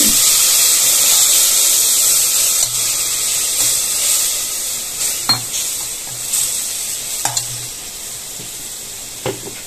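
Water poured onto a hot oil-and-spice tempering in a pressure cooker, sizzling loudly at first and slowly dying down. A few sharp metal clinks come from stirring the pot with a steel ladle.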